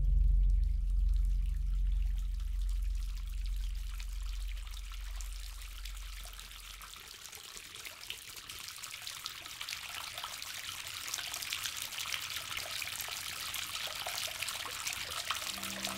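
A low, deep musical note dies away over the first several seconds. Water from a bathtub tap then trickles and runs, growing steadily louder toward the end.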